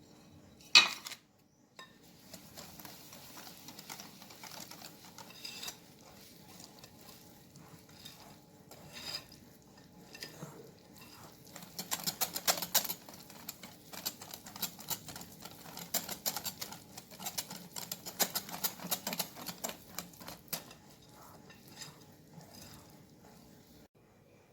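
Cake batter being stirred by hand in a bowl as the remaining semolina is mixed in: quick, repeated scraping and clicking of the utensil against the bowl, busiest in two stretches. A single sharp knock about a second in.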